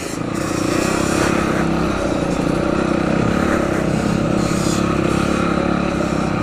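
Single-cylinder four-stroke dirt bike engine running under throttle, swelling over the first second and then holding a steady note.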